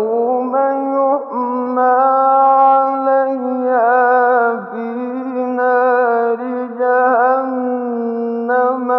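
A male reciter's unaccompanied voice chanting the Quran in the melodic tajweed style. He holds one long drawn-out note with ornamental turns twice along the way, then breaks into shorter notes near the end.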